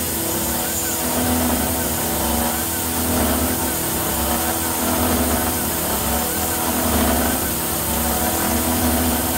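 Desktop CNC router spindle running while its end mill bores a hole in a block of aluminum. The cutting sound swells and fades about once a second. A steady hiss comes from the compressed-air blast that cools the bit and clears the chips.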